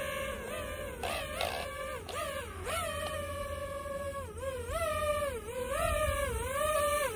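DJI FPV drone's motors and propellers whining in a low hover, the pitch of the whine wavering, dipping and rising several times as the drone holds and shifts position.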